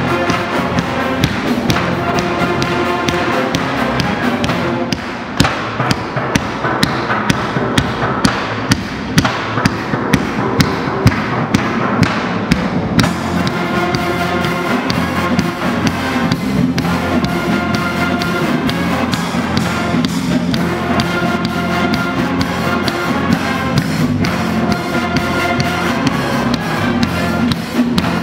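Brass band playing a tune, with trumpets, saxophones and a sousaphone. From about five to thirteen seconds in, a sharp knocking beat of about two strokes a second stands out above the music.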